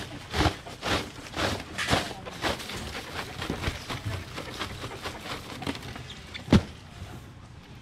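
Styrofoam fish boxes being lifted, shifted and set down on a seafood stall, giving a run of knocks and scrapes. One sharp knock near the end is the loudest.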